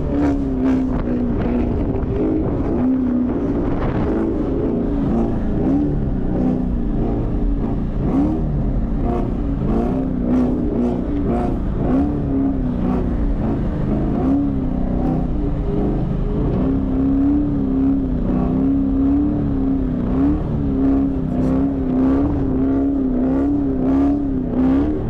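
A Chevrolet Camaro SS's 6.2-litre V8 pulling hard in the snow with traction control off, its revs rising and falling again and again as the throttle is worked. Scattered sharp knocks are heard over the engine.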